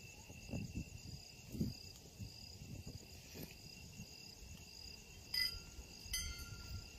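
Crickets chirping steadily in a pulsing high trill, with a few soft low knocks and, about five and six seconds in, two sharp clinks that ring briefly.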